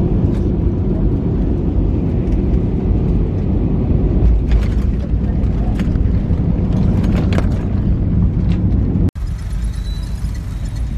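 Steady loud rumble inside a jet airliner cabin as the plane rolls along the runway. About nine seconds in it cuts off suddenly to the quieter running of a car heard from inside the cabin, in traffic.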